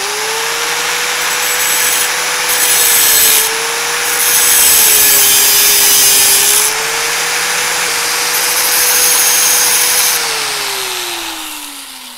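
Electric angle grinder with a thin cut-off wheel cutting slits into a strip of sheet metal. The motor runs at a steady pitch and dips slightly when loaded, while a shrill cutting hiss comes in three stretches as the wheel bites the metal. About ten seconds in the grinder is switched off and winds down with a falling whine.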